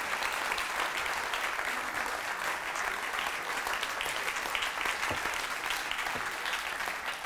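Audience applauding steadily, a dense patter of many hands clapping that thins out near the end.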